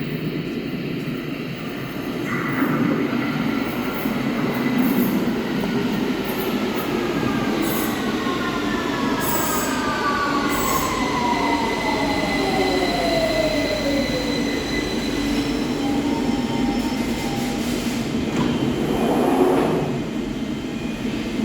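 London Underground 2009 Stock (Bombardier Movia) train on the Victoria line running into a station: its traction motor whine falls steadily in pitch as it decelerates, over the rumble of the wheels on the rails, with some wheel squeal.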